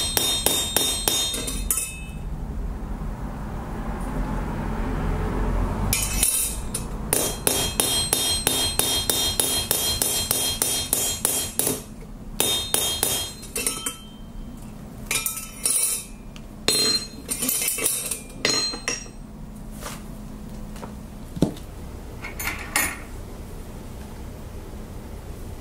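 Hand hammer tapping quickly on a small mild-steel bar frame held against an anvil, each strike ringing off the steel. The tapping comes in runs: a short run at the start, a longer one from about six to twelve seconds in, then shorter bursts that die away, with one last knock near the end.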